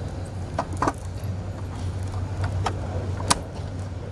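A few light clicks and clinks as an offering is handled at a monk's table near the microphone, over a steady low hum from the sound system.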